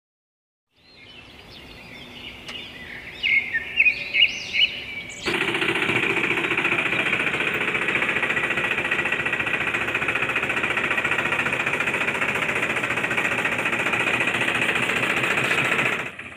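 Birds chirping for the first few seconds, then a small machine starts abruptly about five seconds in and runs with a fast, steady rattle until just before the end.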